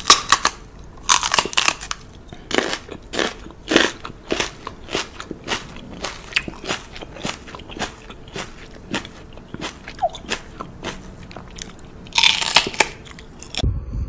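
A person's repeated wet kissing and nibbling smacks on a dog's cheek. They come as a run of sharp smacks, about two or three a second, with denser bursts of smooching near the start and near the end.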